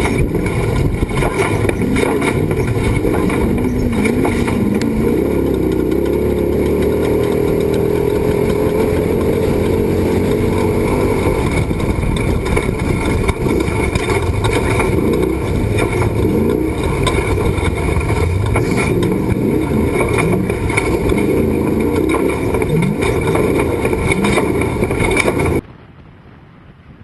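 Off-road race truck engine running hard, its pitch rising and falling as it revs up and down. It cuts off suddenly near the end.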